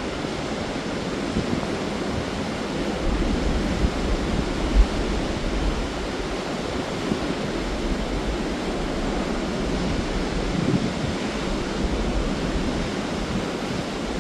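Waterfall rushing steadily, with wind buffeting the microphone in low, irregular gusts.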